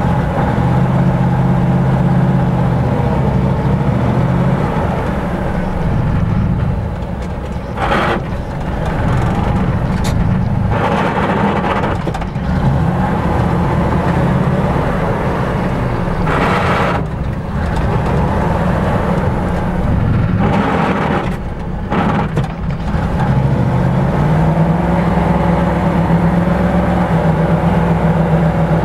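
GAZ-66 truck engine running under load while it tows a UAZ out of swamp mud on a tow strap. The engine note shifts through the pull and steps up to a higher steady pitch about 24 seconds in. A few short rushing noises break in along the way.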